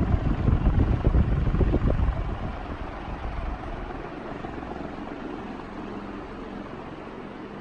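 Air from a 1981 Evergo 36-inch industrial ceiling fan buffeting the microphone in rapid pulses, easing off about two to three seconds in to a steadier, quieter rush of moving air.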